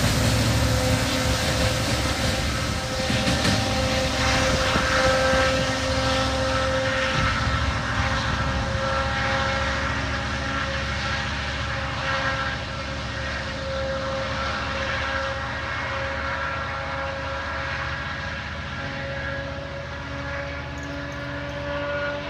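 A rear-end distributed-power (DPU) diesel-electric locomotive on a freight train, working hard under power as it moves away. Its engine drone and steady whine fade gradually.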